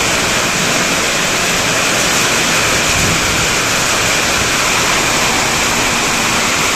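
Heavy rain falling on a corrugated metal sheet roof: a steady, loud hiss without breaks.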